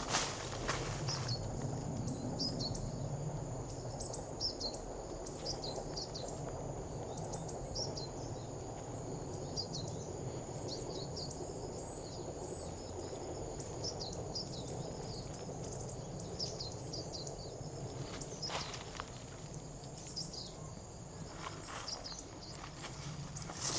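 Outdoor ambience of high, steady insect trilling with many short high chirps over it, above a low, even background hum. A few short knocks, like footsteps, come near the end.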